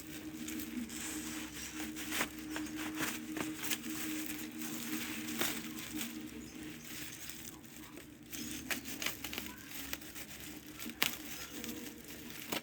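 Packaging being unwrapped by hand: crinkling and rustling with scattered clicks and taps. A steady low hum runs under it for the first half.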